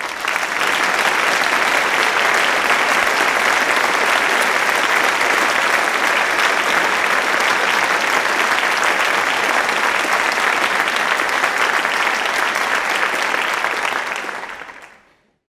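Applause from many clapping hands, steady throughout, then fading out over the last second or so.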